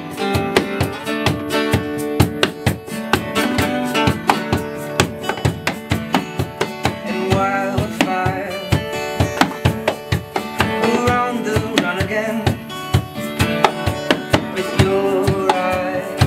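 Live acoustic band playing: acoustic guitars strummed over a steady beat slapped by hand on a box drum, with a man singing the melody.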